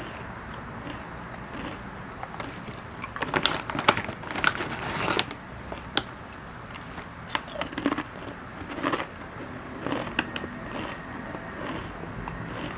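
Lay's potato chips crunching as they are bitten and chewed, picked up close by a clip-on lavalier mic: a dense run of crisp crunches a few seconds in, then scattered bites and chews that thin out after about ten seconds.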